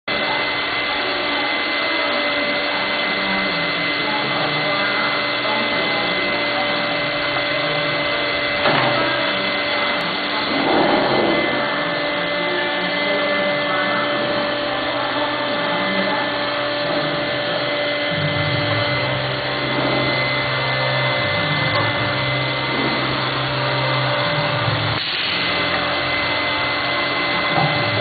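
Woodworking machine and its dust extraction running: a steady whirring with a few constant tones. There are a few short knocks, and a lower drone comes in for several seconds past the middle.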